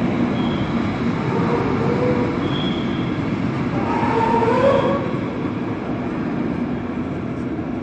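A train of container flat wagons and a passenger coach rolling past on the rails, with a steady rumble of wheels on track.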